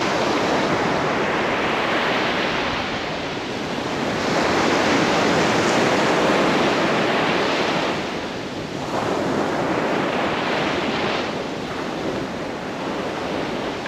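Arabian Sea surf breaking and washing up a sandy beach, swelling louder about four seconds in and easing off around eight seconds.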